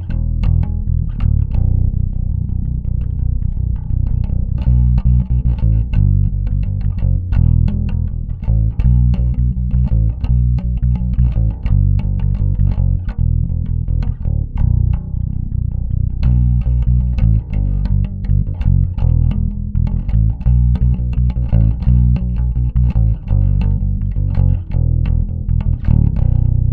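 Warwick Vampyre SN-5 five-string active bass plugged straight into an audio interface, playing the same plucked riff over and over with both pickups blended at halfway and the onboard EQ's bass and treble turned all the way up. The tone is clean and heavy in the low end. The last note is left ringing at the end.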